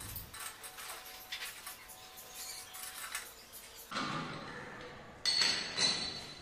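A pipe wrench working the metal waste-fitting nut inside a ceramic wash basin, giving a run of faint light clicks and scrapes. After that comes a shuffling as the basin is handled, then two sharp clinks of hard metal or ceramic contact about half a second apart.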